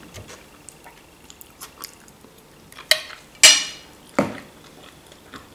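Quiet chewing with small mouth clicks, then a metal fork set down on a dinner plate: a few sharp clinks and knocks around three seconds in, the loudest ringing briefly.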